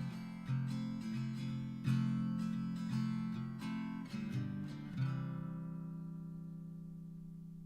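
Background music: acoustic guitar strumming, ending on a last chord about five seconds in that rings on and fades.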